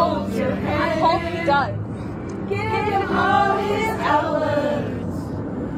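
Singing over music, in three phrases, with a steady low hum underneath.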